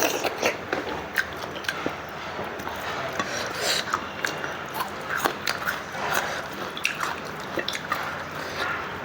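A person eating close to the microphone: chewing and wet mouth smacking, with many short irregular clicks.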